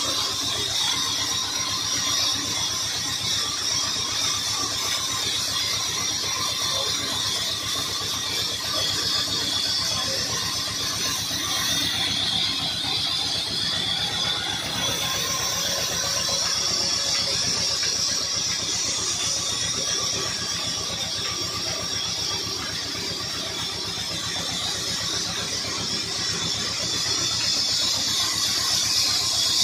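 Band saw mill running, its blade giving a steady high-pitched squeal over the low, even running of the stationary diesel engine that drives it.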